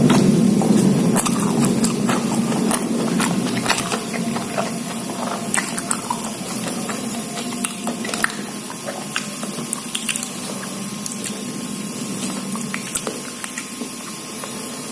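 Close-up wet chewing and mouth smacking of someone eating sambal terasi, omelette and eggplant, with frequent short sharp clicks.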